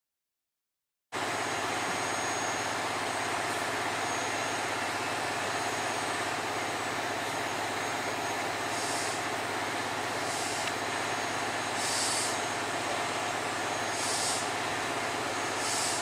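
A heavy vehicle engine running steadily, starting abruptly about a second in, with short high-pitched hisses every second or two through the second half.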